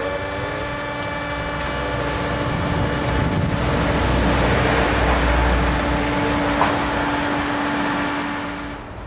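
Hydraulic tyre baler running, a steady machine hum. A heavier low rumble swells in the middle for about three seconds, there is a sharp click soon after, and the sound drops away near the end.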